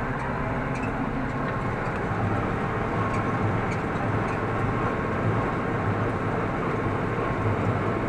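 Massey Ferguson 6150 tractor running steadily under load, heard from inside its cab, while a Welger AP53 conventional small-bale baler works behind it, picking up and baling hay.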